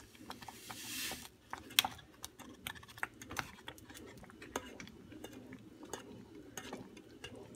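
Strawberry gelatin powder pouring from its packet into a saucepan with a soft hiss over the first second, then a spoon stirring the thick syrup, knocking and scraping against the pan in irregular clicks, the loudest knock about two seconds in.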